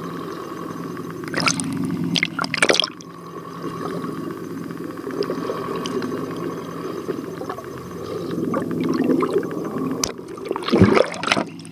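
Underwater sound picked up by a submerged camera: a steady low hum carried through the water, with bubbly gurgling splashes about a second and a half in, again around two and a half seconds, and near the end as bubbles rush past the lens.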